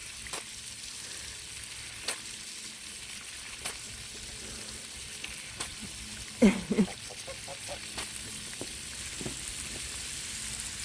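Water from a running garden hose spraying and spattering steadily, with a few small splashes or ticks where the young goose pokes at the stream. A short vocal sound about six and a half seconds in.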